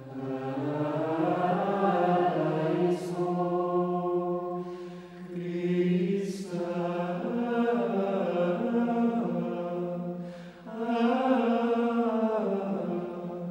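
Slow sung chant, one long melodic line held on sustained vowels. The singing breaks briefly twice, about five and ten seconds in, between phrases.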